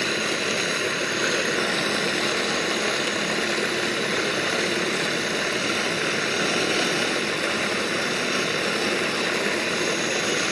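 A 24-volt electric lawnmower motor runs steadily, spinning its shaft while a flat file is held against the turning shaft end. The result is a continuous whir mixed with the scrape of the file, as the shaft end is turned down by hand, lathe-fashion.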